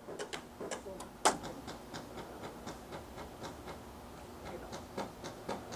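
Airsoft skirmish fire: scattered sharp ticks and clicks at an irregular pace, with one louder crack about a second in.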